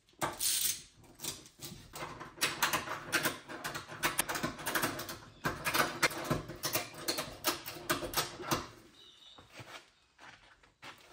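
Rapid, irregular clicking and knocking from hand work on the rear axle and suspension under a hoisted car. It dies away about nine seconds in.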